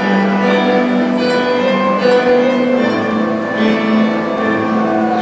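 Live ensemble of bowed strings and guitar playing slow, held notes that change about once a second, in a classical style.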